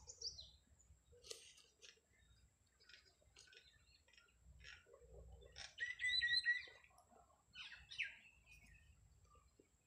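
Small birds chirping in the background: a few short chirps, with a quick cluster of chirping notes about six seconds in as the loudest part. Faint scratches of a pen on paper and plastic ruler lie underneath.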